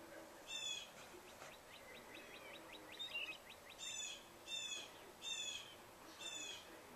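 A bird calling outdoors: one short, high call, then a fast rattling run of ticking notes, then four more short calls about a second apart in the second half.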